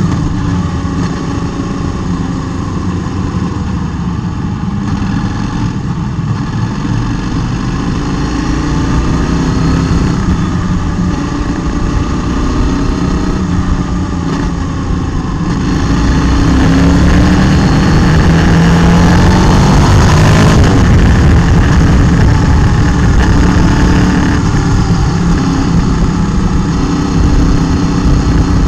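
Motorcycle engine heard from a camera mounted on the bike while riding, its pitch rising and falling with the throttle, over rushing wind on the microphone. About halfway through it pulls harder and gets louder, with a gear change a few seconds later.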